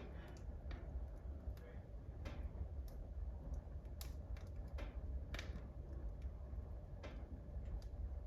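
Wood fire in a wood burner crackling and popping: about a dozen irregular sharp snaps over a steady low rumble.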